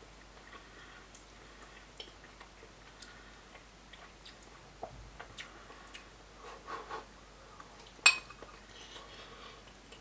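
Quiet chewing of a mouthful of spaghetti carbonara, with a few soft clicks and one sharp click about eight seconds in.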